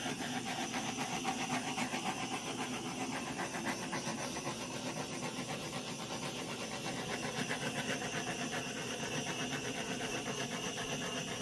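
Butane torch burning with a steady hiss, its flame played over wet poured acrylic paint to pop air bubbles.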